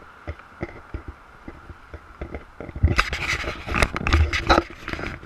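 Footsteps climbing an outdoor wooden staircase with metal-ridged treads, a run of knocks about three a second. From about three seconds in, louder scraping and rubbing comes from close by, with knocks mixed in.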